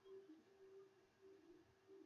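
Near silence: room tone with a faint, intermittent low hum.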